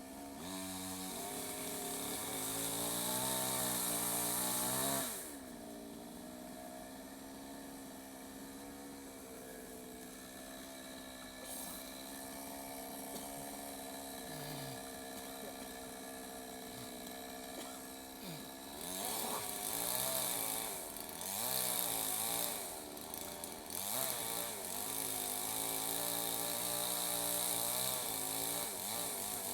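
Chainsaw engine revving high for about five seconds, then dropping to a steady idle. From about two-thirds of the way through it revs up and down repeatedly, as when cutting wood.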